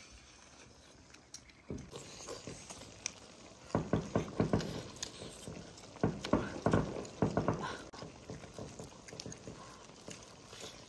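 Close-up eating sounds: a pig trotter being gnawed and sucked, with wet smacking and slurping that comes in short clusters, loudest a few seconds in.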